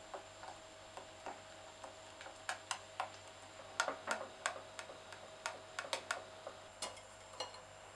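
Silicone spatula stirring and folding a thick cream mixture in a stainless steel saucepan, giving irregular light clicks and taps against the pan, sparse at first and more frequent after about two seconds.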